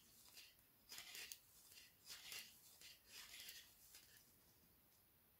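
Faint scraping and clicking of knitting needles drawing yarn through as knit stitches are worked, about once a second, stopping about four seconds in.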